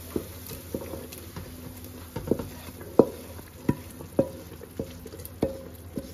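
A metal spoon knocking and scraping against a cooking pan, a little more than once a second, as fried nihari masala is scooped out and added to the pot of mutton, with a low sizzle of frying underneath.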